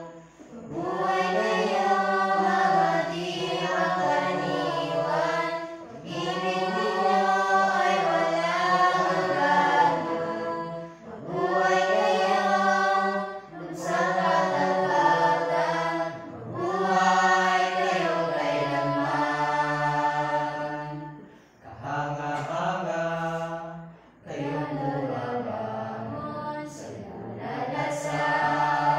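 Mixed choir of young men and women singing a cappella in harmony, in phrases a few seconds long with brief breaks between them.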